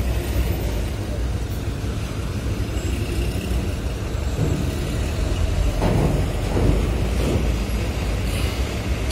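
Heavy diesel trucks running at a ferry's vehicle ramp: a steady low engine rumble, swelling briefly about six seconds in.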